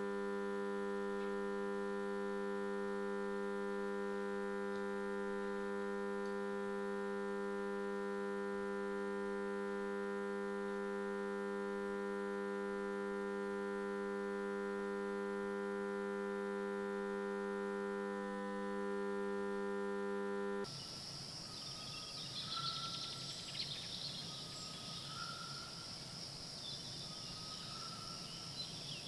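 A steady electrical hum with many evenly spaced overtones, typical of mains-powered equipment, which cuts off abruptly about two-thirds of the way through. It gives way to outdoor ambience: a steady high insect drone with short chirping calls repeating every second or two.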